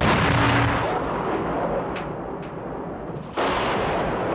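Explosions and gunfire from wartime shelling. A blast of noise starts suddenly and carries on, two sharp cracks come about two seconds in, and a second blast follows a little after three seconds.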